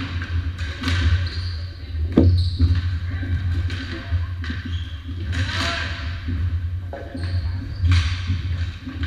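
Floor hockey play in an echoing gym: sticks and ball knocking on the hardwood, short shoe squeaks and players calling out, over a steady low hum.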